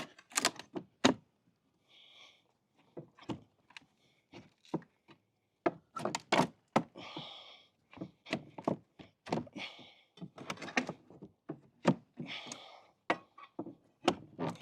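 Repeated knocks and thuds of tools striking wooden deck boards as they are worked loose, with a few short higher-pitched scrapes in between.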